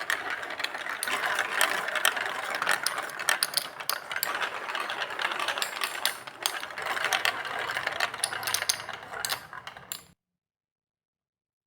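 Marbles rolling and clattering along a plastic Lego Duplo block track: a dense, continuous rattle of many small clicks that thins out near the end and cuts off suddenly about ten seconds in.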